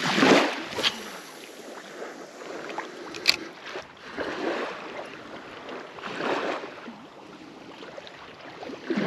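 Shallow seawater sloshing in three separate washes, the first the loudest, with one sharp click about three seconds in.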